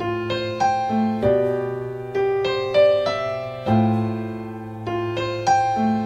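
Background music: a piano playing a slow tune over held chords and low bass notes, each note struck and left to ring.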